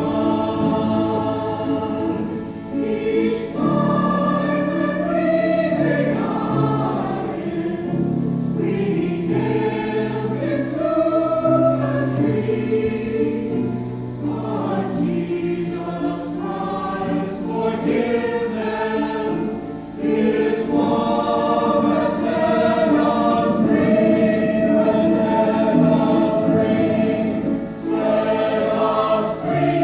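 Church choir singing a sacred cantata with accompaniment, sustained sung chords shifting from note to note.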